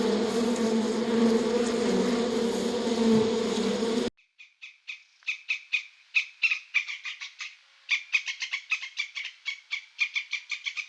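A steady buzzing drone with a low hum, which cuts off suddenly about four seconds in, followed by rapid high chirping calls, several a second.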